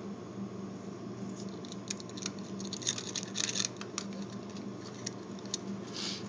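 Small scraping and clicking sounds of a makeshift tool being worked inside a vending machine's coin slot, most of them in the middle, over a steady low hum.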